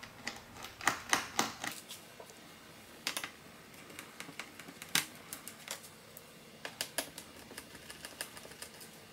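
Small Phillips screwdriver working the screws out of the underside case of a Dell Inspiron 5000-series laptop: a run of small, sharp, irregular clicks and ticks of the bit, the screws and the tool against the case, in little clusters every second or two.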